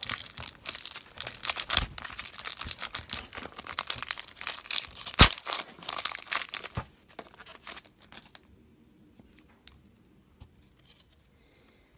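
A Pokémon booster pack wrapper being torn open and crinkled, a dense crackling for about seven seconds with one sharp snap about five seconds in, then it goes nearly quiet.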